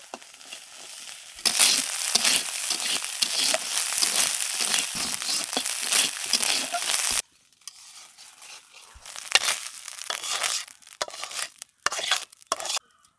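Crumbly fish roe sizzling in oil in a kadai while a steel spatula stirs and scrapes it against the pan. About seven seconds in the sizzle drops away abruptly, leaving scattered scrapes and taps as the spatula scrapes the fried roe out of the pan into a steel bowl.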